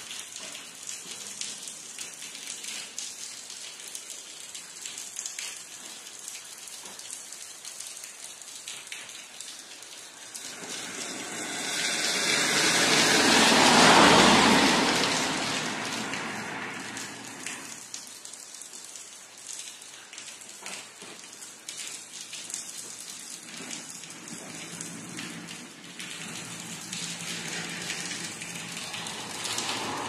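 Steady rain falling, with the patter of many drops on a surface. About a third of the way in, a loud rushing whoosh swells up over a few seconds and fades away again.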